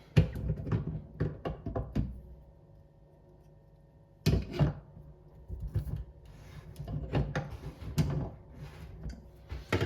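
Clicks and knocks of pliers and metal tap parts being handled as the mixer tap's cartridge retaining nut is unscrewed: a flurry of clicks at first, a pause, a louder knock about four seconds in, then scattered lighter clicks.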